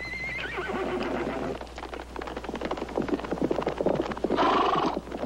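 A horse whinnying with a wavering cry, then a quick run of hoof knocks and two loud, breathy blows near the end.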